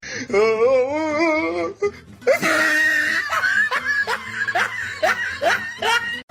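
A wavering, warbling voice, then a run of short rising laugh-like cries about two or three a second, over background music with a steady low bass.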